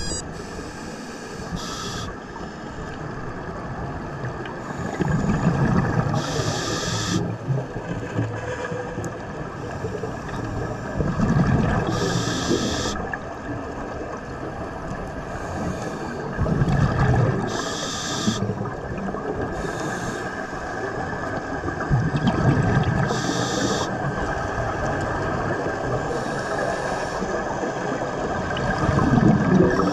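Scuba diver breathing underwater through a regulator: a hiss with each inhalation and a low rumble of exhaled bubbles. About five breaths, one every five to six seconds.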